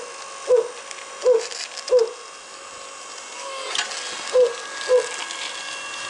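Hydraulic log splitter running with a steady motor hum while its ram presses on a log that won't split. Short squeaks repeat about every two-thirds of a second, with faint crackles in between; the strain is enough that the operator expects the overload protection to trip.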